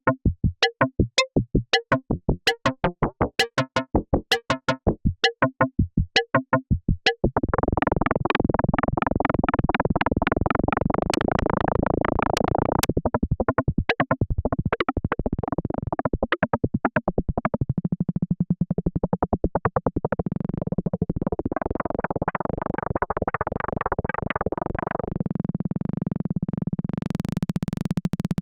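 K-Accumulator synthesizer module playing a plucky two-operator FM patch tuned to just-intonation ratios. It starts as a fast run of short plucked notes, about three a second, which about seven seconds in merge into a dense, continuous texture. A steady low drone note joins past the middle; the texture fades out near the end, leaving the drone, and a high hiss comes in just before the end.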